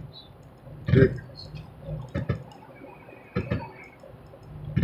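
Sharp clicks and knocks at irregular intervals inside a moving truck's cab, over a low engine hum.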